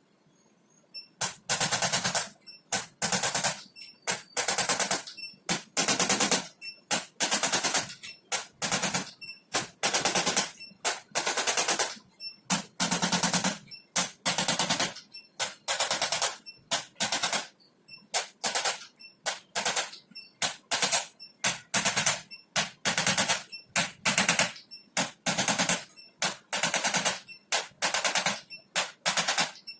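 Rapid rattling in repeated bursts, from a fraction of a second to about a second long with short gaps between them, starting about a second in.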